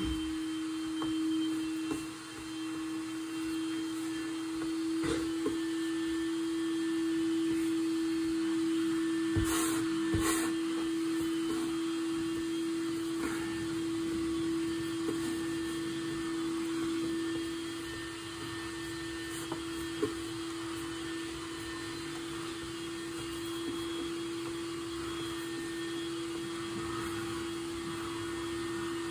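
Vacuum cleaner running from another room: a steady droning hum, with a few faint knocks about five and ten seconds in.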